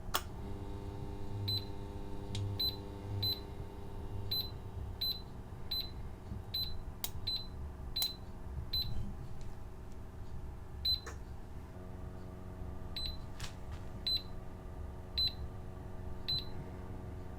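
Induction hob touch-control panel beeping: short single high beeps, about one a second for the first half, then more spread out. A few sharp clicks fall between them, over a steady low hum.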